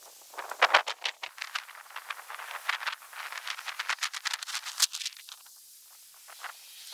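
A quick run of rattling clicks as a spray can is handled at the brass flare fittings of a mini split's copper line set, thinning out about five seconds in.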